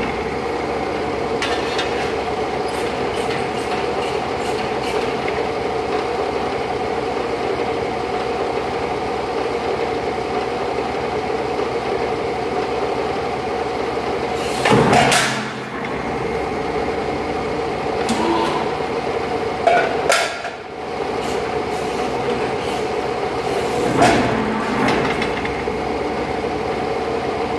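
Press brake running with a steady mechanical hum while a steel sheet is bent, broken by three loud metallic clanks: the loudest about halfway through, then two more near the end.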